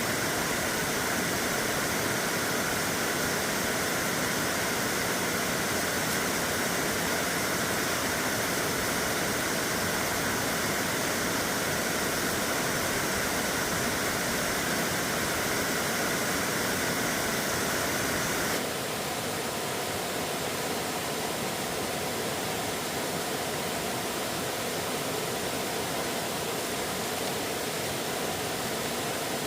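Steady rushing of flowing water. About two-thirds through it shifts abruptly to a slightly quieter, duller rush.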